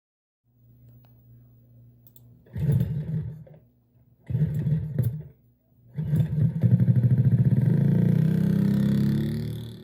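An engine running at a low idle, then revved in three surges, the first two short and the third held for several seconds with its pitch rising slightly before it drops off.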